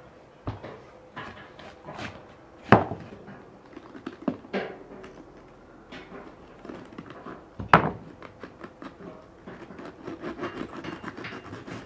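Large knife cutting into a raw head of white cabbage on a wooden board: crisp crunching cuts and sharp knocks, two of them much louder than the rest, then crackling as cabbage pieces are pulled away near the end.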